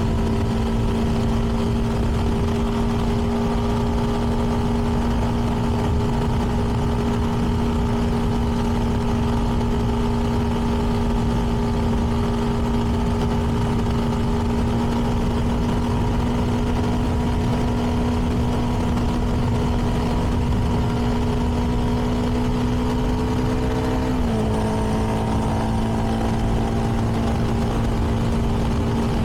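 CFMoto 300NK's single-cylinder engine through its stock exhaust, running at a steady cruise with its note creeping slowly higher. About 24 seconds in, it steps suddenly down to a lower steady note, over a low rush of wind noise.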